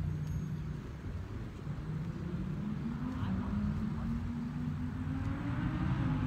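A motor engine humming steadily, its pitch climbing slowly from about two seconds in and then holding.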